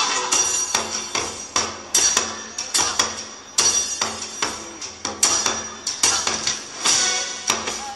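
A percussion-only passage in the dance's music: sharp strikes with short ringing tails in an uneven rhythm, about two to three a second, with no singing.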